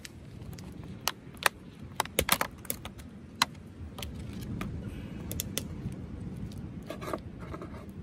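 Thin clear plastic lid of a takeaway sashimi tray being pulled off and handled: a string of sharp, crisp plastic clicks and crackles, over a steady low rumble.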